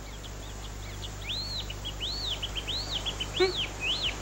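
Bird song: clear whistled notes that rise and fall in pitch, repeating about once or twice a second, over a low steady background hum. A short vocal grunt cuts in about three and a half seconds in.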